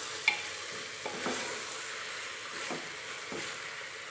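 Wooden spatula stirring chicken and masala in an aluminium pressure cooker, scraping and knocking against the pot, over a steady sizzle. The sharpest knock comes about a third of a second in.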